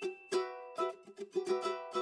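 Background music: a light tune of quickly repeated plucked-string notes with a steady beat.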